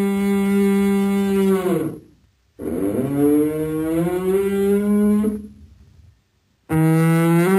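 Elk bellowing: long, low, drawn-out calls. The first ends about two seconds in, a second lasts about three seconds and rises slightly in pitch, and a third begins near the end.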